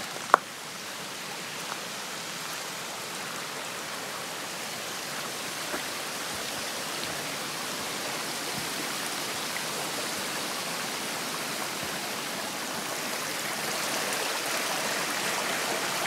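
Small rocky creek running over stones in a steady rush of water that grows a little louder near the end; the creek is running low after a long dry spell. A single sharp click sounds just after the start.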